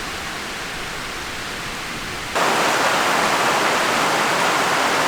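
Heavy rain pouring down, a steady hiss that jumps suddenly louder about two and a half seconds in.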